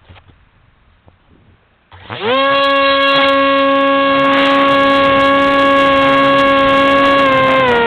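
Radio-controlled model airplane's motor heard from a camera on board: about two seconds in it spools up sharply to full throttle and holds a loud, steady whine, then drops in pitch as it is throttled back near the end.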